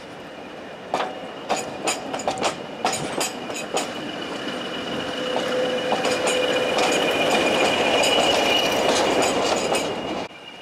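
Passenger coaches rolling past with their wheels clicking over rail joints, then a British Rail Class 20 diesel locomotive at the rear of the train passing close by. Its English Electric engine builds up with a steady high whine and is loudest about eight seconds in. The sound cuts off sharply near the end.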